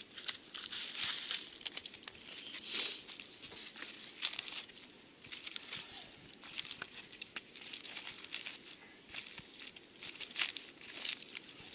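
Dry leaves and slabs of bark rustling and crunching as bark is laid and pressed down into a fire pit, with irregular scrapes and small knocks and louder rustles about one and three seconds in.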